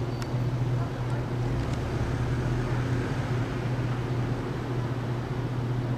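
A steady low mechanical drone with a few even overtones, over a light hiss of street noise.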